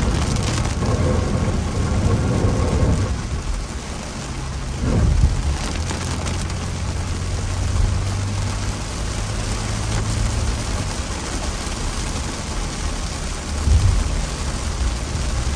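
Heavy rain falling on a moving car's roof and windshield over the low rumble of driving on a wet road, with a brief louder bump about five seconds in and again near the end.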